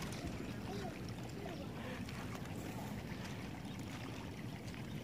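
Steady rushing of fast-flowing floodwater, an even wash of noise with a low rumble underneath.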